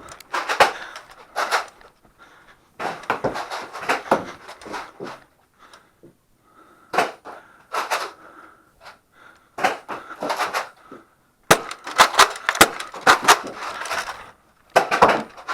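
Sharp clicks and clacks in bursts from Nerf blasters being primed and fired. There are several clusters of quick snaps with short pauses between them.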